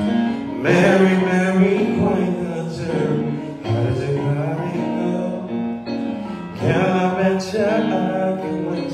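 A man singing into a handheld microphone in long, held notes whose pitch bends and wavers, over sustained keyboard chords.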